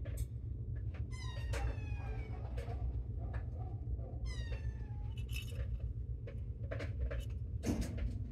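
A kitten meowing twice, each call about half a second to a second long and falling in pitch, about a second in and again about four seconds in, over a steady low hum with small rustles and clicks.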